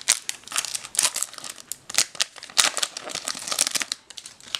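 Foil Pokémon booster-pack wrapper crinkling and crackling as it is handled and torn open, a dense irregular run of sharp crackles that thins out near the end.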